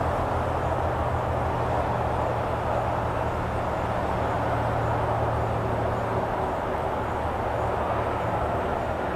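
A steady background drone with a constant low hum underneath, unchanging throughout.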